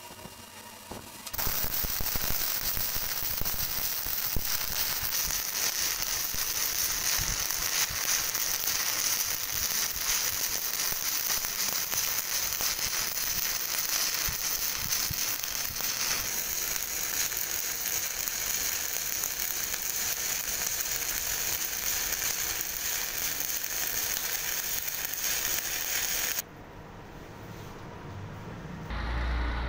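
Stick-electrode arc welding: the arc crackles and sizzles steadily, starting about a second in and cutting off sharply near the end as the arc is broken.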